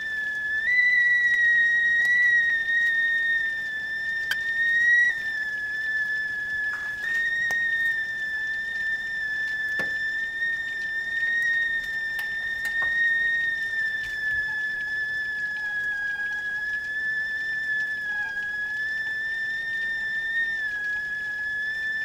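Whistling kettle at the boil, giving one continuous high whistle. The pitch steps up slightly about a second in, wavers a little and sinks a touch near the end.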